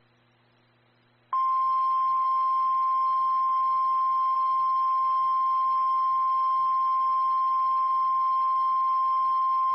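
NOAA Weather Radio 1050 Hz warning alarm tone: after a faint hum, a single loud, steady high tone starts about a second in and holds unchanged, with a little static around it. It marks a weather warning about to be read.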